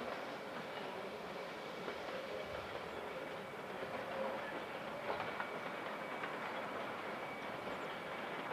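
Train running along the track: a steady rolling noise with a few faint clicks.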